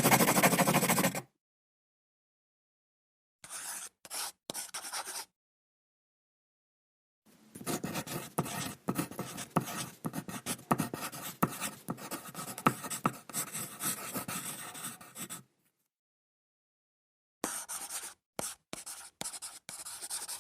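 Pen writing and scribbling on paper: scratchy strokes in separate takes with dead silence between. A loud burst of scribbling at the start stops about a second in. A few short strokes follow around four seconds, then a long stretch of steady writing from about seven to fifteen seconds, and quick short strokes near the end.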